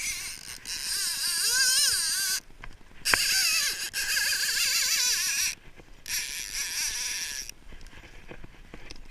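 Fishing reel drag buzzing in three long runs, its pitch wavering, as a hooked yellowtail pulls line off; it goes quieter near the end.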